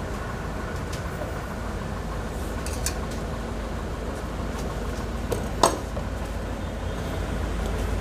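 Steady low rumble of background noise, with a few light clicks and one sharp click or knock a little past halfway.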